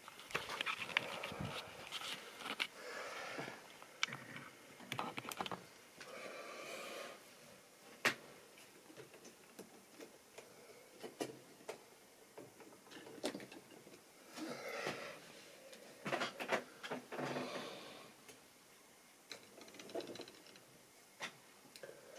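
Handling noise: rustling and scattered light clicks and knocks as model railway locomotives are handled and set down on the track.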